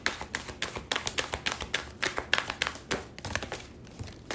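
Deck of tarot cards being shuffled by hand: a quick, irregular run of card slaps and clicks, several a second, thinning out near the end.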